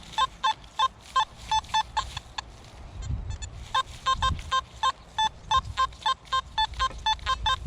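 Nokta Simplex+ metal detector giving a quick run of short, mid-pitched beeps, about three or four a second, as the coil sweeps back and forth over a buried target, with a pause of about a second midway. The signal repeats well enough that he goes to dig it.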